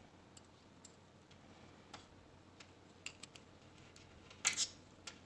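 Light clicks and taps of multimeter test probes being handled and placed on circuit board terminals, scattered through, with a louder double clatter about four and a half seconds in.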